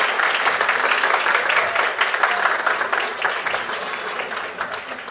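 Audience applauding with dense clapping that gradually dies down toward the end.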